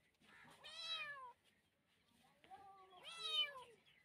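Kitten meowing twice, each meow lasting about a second and falling in pitch.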